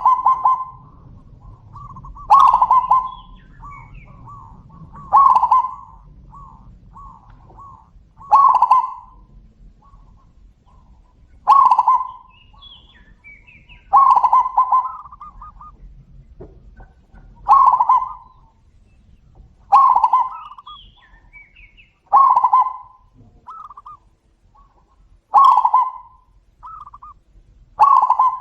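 Zebra doves (perkutut) cooing back and forth. A loud, rippling call comes about every 2.5 to 3 seconds, with softer short coos between.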